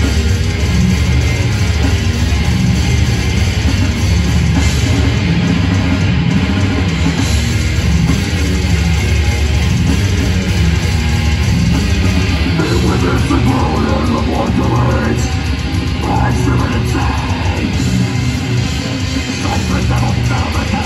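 A death metal band playing loud through a club PA, with distorted electric guitars, bass and drums. From a little past halfway, moving pitched lines fit the vocalist's growled vocals coming in.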